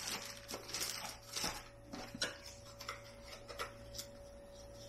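A clear plastic bag crinkling and a small cardboard box of accessories being handled: scattered rustles and light clicks, busiest in the first second and a half, over a faint steady hum.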